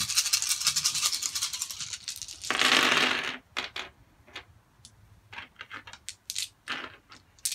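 A handful of red plastic six-sided dice rattling as they are shaken, then thrown onto the game table about two and a half seconds in, followed by scattered single clicks as dice are sorted and picked up.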